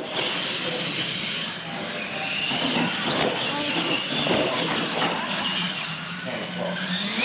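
Electric R/C monster trucks racing: a high motor and gear whine that rises and falls, with several clunks as the trucks hit the launch ramps and land.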